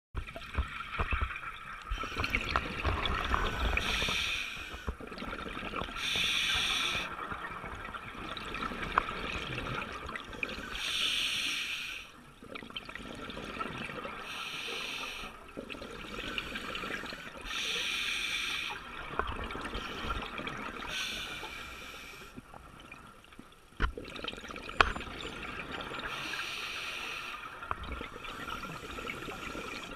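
Scuba regulator heard underwater: a diver's exhaled bubbles gurgle out in surges of about a second, every few seconds, with a few sharp knocks between them.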